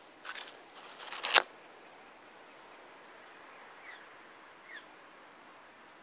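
Brief rustling and crackling, loudest about a second and a half in, then a low steady hiss with a few faint, short chirps falling in pitch, from small birds.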